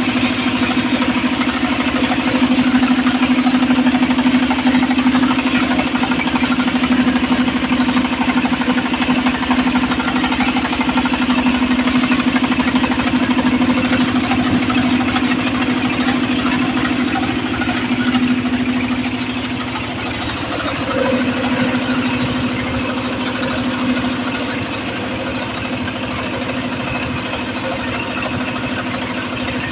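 Home-built circular saw machine running steadily: a strong constant low tone from its motor with a noisy layer above it. The level drops a little about two-thirds of the way through.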